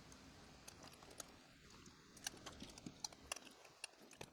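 Faint, scattered light clicks and taps of small parts being handled, as a model locomotive and its tender are worked on by hand.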